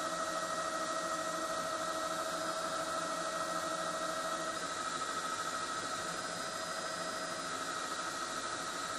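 A steady hiss with a steady high whine, the engine noise of a news helicopter heard from inside it, unchanging throughout.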